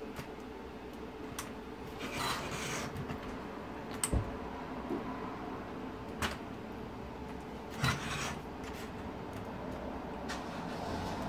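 A metal teaspoon scraping and levering against the plastic dial face of an Audi TT instrument cluster as the gauge pointers are prised off: a few short scrapes and rubs, with one sharp click about four seconds in.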